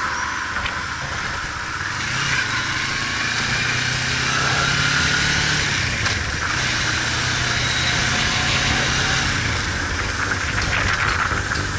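Motorcycle engine running on the move, its hum picking up about two seconds in and rising slightly in pitch a couple of seconds later, over steady rushing wind and road noise.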